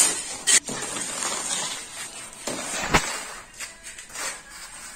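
Wet concrete being worked and levelled with a screed board across a table form: scattered scraping and taps, with a short scrape about half a second in and a sharp knock about three seconds in.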